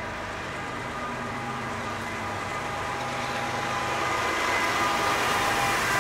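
A train rolling past at close range: a steady rumble of wheels on rail with a steady whine in it, growing louder over the last couple of seconds.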